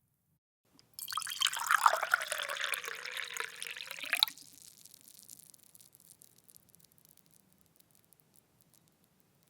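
Water poured into a glass in one steady stream of about three seconds. Its ringing pitch dips, then rises as the glass fills, and the stream cuts off suddenly. Dribbles and drips follow and die away over the next few seconds.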